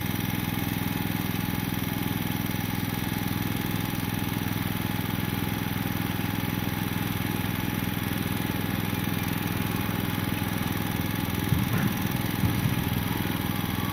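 Small portable gasoline generator running steadily at a constant speed, briefly louder a couple of times near the end.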